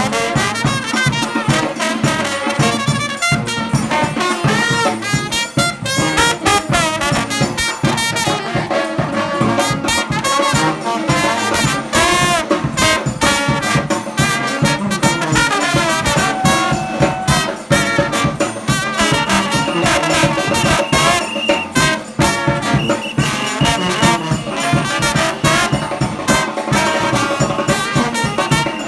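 New Orleans–style brass band playing live: trumpets and trombones over a steady, driving drum beat.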